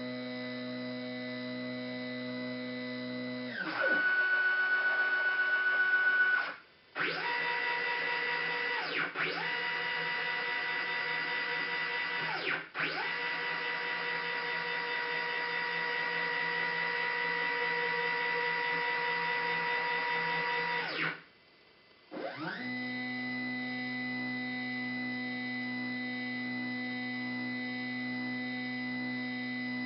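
Stepper motors of a DIY CNC machine whining as the axes move, a steady pitched tone that jumps to a new pitch between moves. The tone stops briefly twice, about a fifth of the way in and again about two-thirds of the way through.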